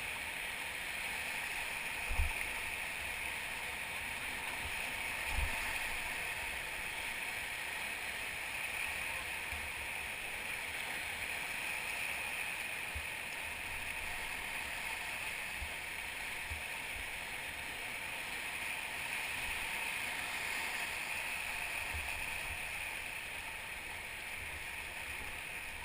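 Steady rush of river whitewater around a raft, with two low bumps about two and five seconds in.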